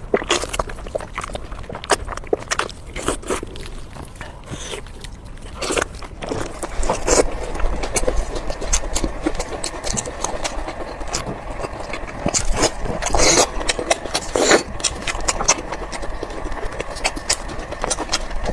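Close-miked eating sounds: chewing with many short wet clicks and smacks, busier and fuller from about halfway through.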